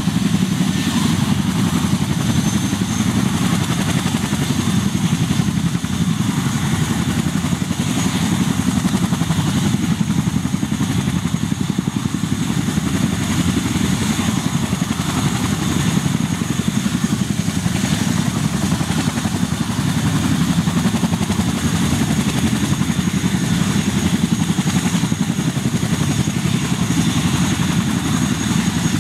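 Boeing CH-47 Chinook's twin turboshaft engines running on the ground with its tandem rotors turning. A steady high turbine whine sits over a dense low drone.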